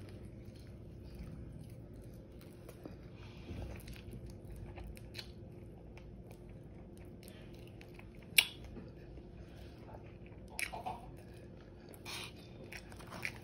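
Close-miked chewing and biting of crispy air-fried chicken wings, with scattered small crunches and one sharp click about eight seconds in.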